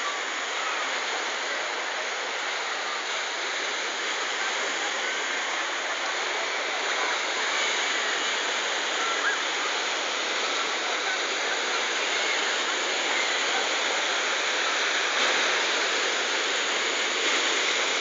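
Sea surf breaking and washing up a pebble shore: a steady rush of water, a little louder toward the end.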